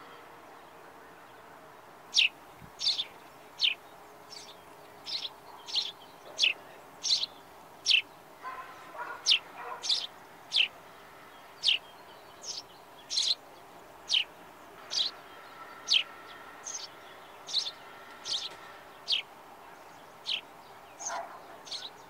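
Sparrows chirping: a steady series of short, sharp chirps, about one and a half a second, each dropping quickly in pitch, starting about two seconds in.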